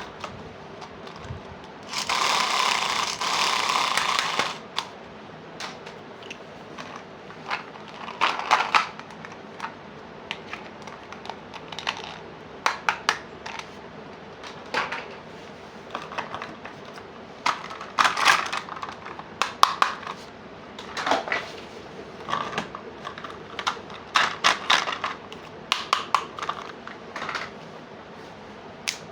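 Small plastic toy play-set pieces being handled, with scattered clicks and clatters. About two seconds in there is a steady rustling noise lasting about two and a half seconds.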